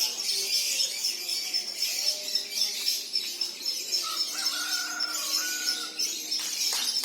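Lovebirds singing in a contest, several at once: a continuous, high, rapid chattering trill that runs on without a break.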